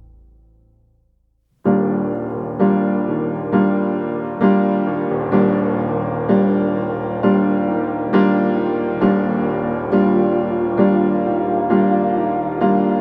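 Background piano music. A fading sound dies away to a brief silence, then a piano piece starts about a second and a half in, with chords struck at a steady pace of roughly one a second.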